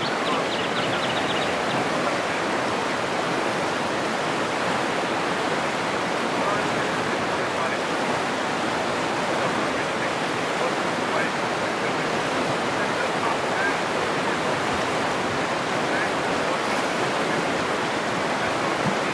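Shallow river rushing over rocky rapids: a steady, even roar of white water.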